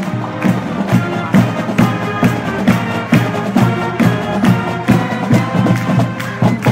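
Marching band playing a tune, wind instruments holding notes over drums that keep a steady beat of about two strikes a second.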